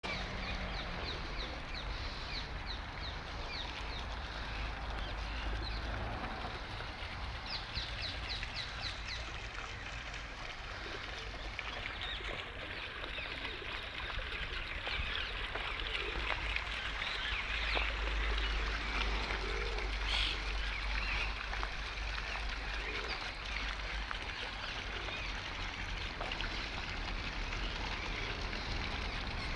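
Small birds chirping in quick series, over the steady trickle and splash of a small fountain jet falling into a stone basin, which is loudest in the middle. A low rumble runs underneath.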